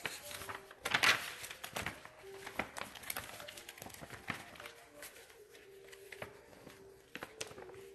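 Paper rustling and crinkling with irregular sharp crackles, loudest about a second in: pages being handled.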